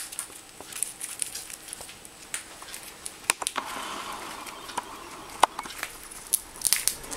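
Senegal parrot's beak cracking and picking at a peanut shell: irregular sharp clicks and crackles, with some soft rustling about halfway through.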